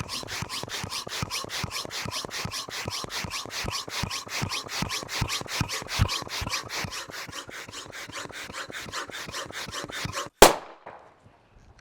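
Balloon hand pump worked in quick, even strokes, about five a second, inflating a balloon until it bursts with one sharp, very loud pop about ten seconds in.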